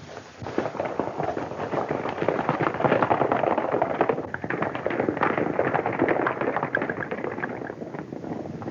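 Horses galloping: a fast, dense clatter of hoofbeats that swells to its loudest in the middle and eases off toward the end.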